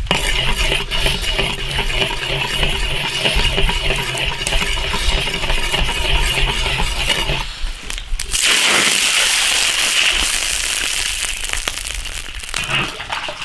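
Sugar caramelizing in hot oil in an iron wok, bubbling and crackling while a metal ladle stirs and clinks against the wok; the mixture is turning reddish brown, the colour stage of making caramel for braising. About seven and a half seconds in it gives way to a louder, hissing sizzle of reddish liquid bubbling in the wok.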